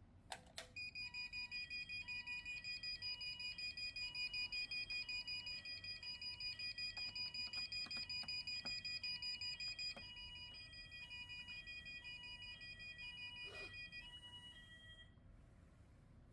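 SmartCell wireless fire alarm sounders going off during a routine test. A couple of clicks come first, then a rapidly pulsing high tone and a slower alternating two-tone warble sound together. Both get quieter about ten seconds in, the pulsing tone stops around fourteen seconds, and the two-tone warble cuts out a moment later.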